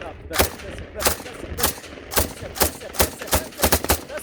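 Celebratory gunfire: an irregular string of about a dozen single gunshots, two to four a second and bunching closer near the end, with voices faintly between the shots.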